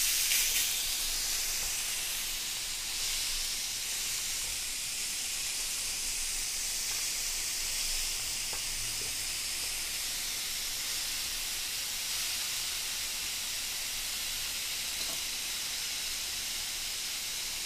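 Pork chops sizzling on a round electric countertop grill: a steady high hiss, slightly stronger in the first couple of seconds.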